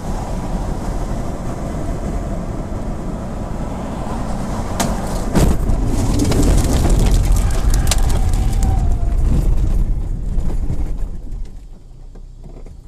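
Road and wind noise inside a car's cabin, picked up by a dashcam, with a couple of sharp knocks about five seconds in. Then a louder stretch of rumbling and rattling as the car runs off the road onto rough ground, easing off near the end.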